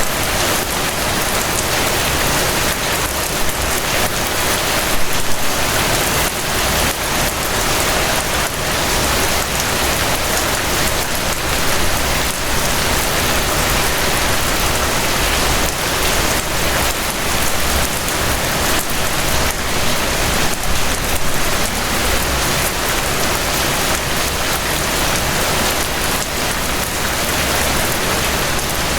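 Gentle rain falling steadily: a dense, even patter of countless drops with no pauses or changes.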